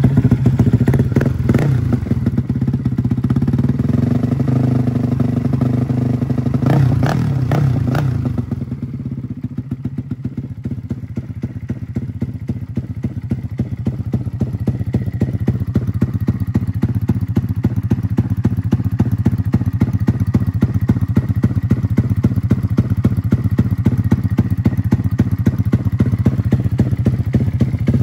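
Custom 300cc big-bore, stroker-crank Honda Grom single-cylinder engine, just started, running through an aftermarket exhaust. It runs at raised revs with a few sharp knocks for about eight seconds, then drops to a lower, steady idle. The fuel tune is still unfinished.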